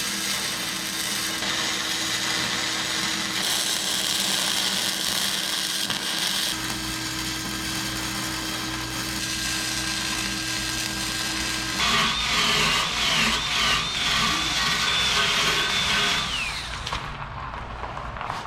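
A power tool running steadily, its pitch shifting in steps, with a wavering high whine over the last few seconds.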